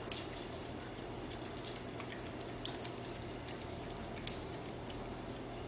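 Puppy eating wet dog food from a plate: faint, irregular little clicks and smacks of chewing and licking over a steady low hum.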